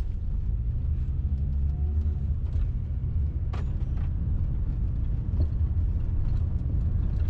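Car cabin noise while driving: a steady low rumble of engine and road, with a few faint clicks around the middle.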